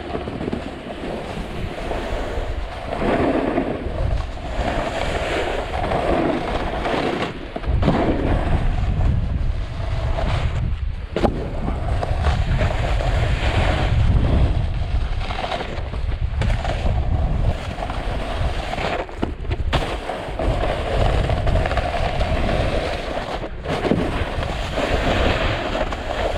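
Strong wind buffeting the microphone, with the hiss and scrape of a snowboard sliding over snow; the low wind rumble gets heavier about a third of the way in.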